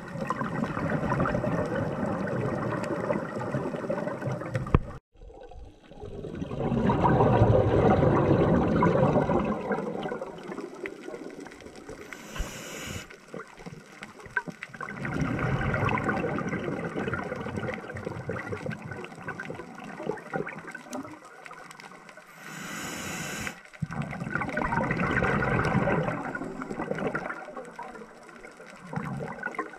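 Scuba diver breathing through a regulator underwater: long gurgling bursts of exhaled bubbles, four in all, with a short high hiss of inhalation in two of the gaps.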